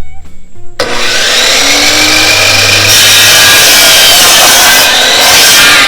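Electric miter saw cutting a chunk of smoking wood in half: a loud, dense sawing noise that starts suddenly about a second in and stops abruptly at the end.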